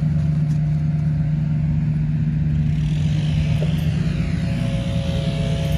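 A steady low rumble with a constant low hum. Faint higher steady tones join about halfway through.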